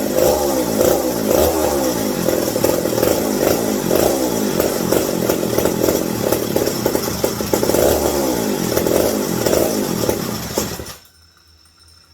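McCulloch 740 two-stroke chainsaw engine running, its pitch rising and falling over and over as it revs, then dying suddenly about eleven seconds in. The owner blames a misbehaving carburetor: it runs and then floods and dies.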